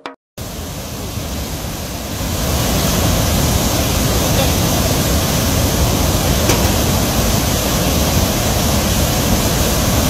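Swollen Godavari floodwater rushing through the open gates of the Medigadda barrage: a steady, loud rush of churning water, beginning after a brief silence at the start and swelling slightly about two and a half seconds in.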